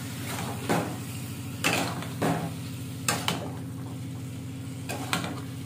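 Metal spatula scraping and knocking against a kadai while boiled eggs in thick masala are stirred: about eight short strokes at irregular spacing, over a steady low hum.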